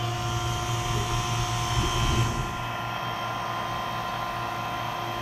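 Electric vacuum pump running steadily, pulling a vacuum on a bell jar to degas freshly poured investment plaster. A higher hiss of air through the just-opened vacuum valve rides over the hum and ends about two and a half seconds in.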